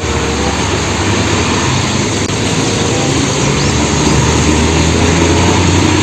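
Hino concrete mixer truck driving on a wet road: a steady low diesel engine hum under a loud, even hiss. It cuts off suddenly at the end.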